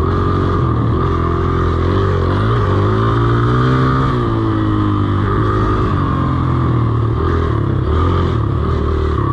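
Dirt bike engine being ridden, revving up and down with the throttle, its pitch climbing from about two seconds in and dropping back at about four seconds.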